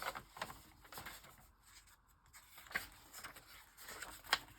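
Paper rustling with a few light taps as journal pages and loose paper pieces are handled, the sharpest sound about four seconds in.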